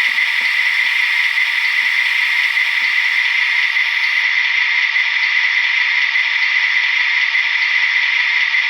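The sound decoder of an HO-scale REE BB67000 model locomotive playing a steady hissing sound through the loco's tiny on-board speaker, thin and without bass.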